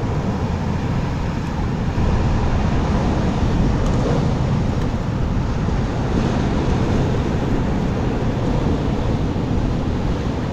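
Steady low rumble of wind buffeting the microphone, over the continuous wash of sea surf on coastal rocks.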